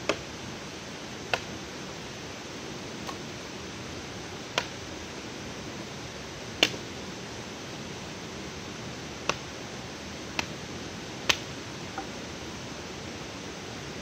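About nine sharp, irregularly spaced cracks and knocks of wood being broken up and worked by hand, over a steady forest hiss. The loudest crack comes about halfway through.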